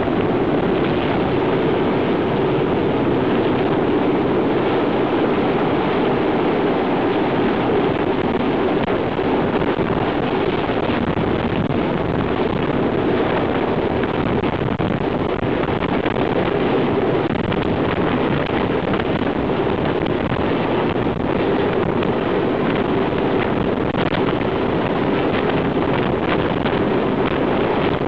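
Royal Navy Sea King search-and-rescue helicopter hovering low overhead: loud, steady rotor and turbine noise, with the rotor downwash buffeting the microphone.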